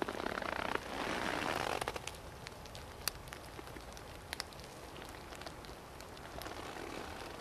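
Soviet-made rubber boots stepping through wet fallen leaves: two louder rustling steps in the first two seconds, then a steadier hiss of leaf litter with scattered sharp ticks.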